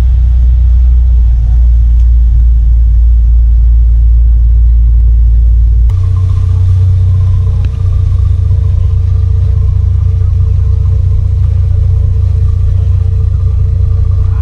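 Fast Cat M9 catamaran ferry's engines running steadily under way: a heavy low rumble. About six seconds in, this gives way to a steady engine drone with a constant hum.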